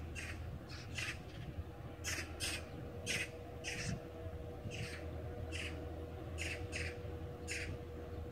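A bird giving a dozen or so short, noisy calls, several in quick pairs, over a steady low hum.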